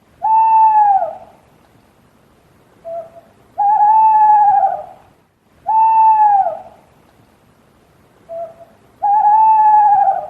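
An owl hooting: a long hoot that falls at its end, a short low note, then a long wavering hoot, the whole phrase given twice.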